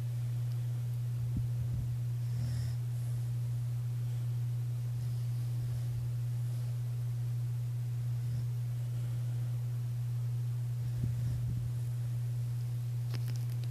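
A steady low electrical-sounding hum, with the faint, soft breaths of a sleeping pit bull–red heeler dog heard a few times, about two seconds in and again near the end.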